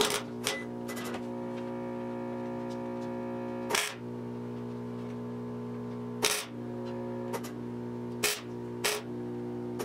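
MIG welder laying short tack welds on thin sheet-steel patch panel: about eight brief crackling bursts, three close together at the start, then spaced a second or more apart. Background music with a steady held chord plays underneath.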